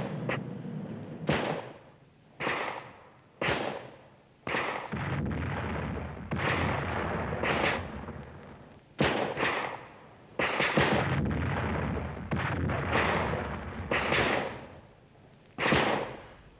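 Siege cannon fire: a long string of heavy shots, about one a second, each dying away over a second or so.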